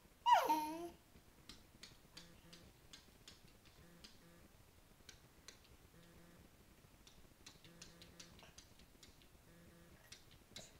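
A baby's short squeal, sliding steeply down in pitch, about half a second in, followed by faint, irregular ticking and clicking.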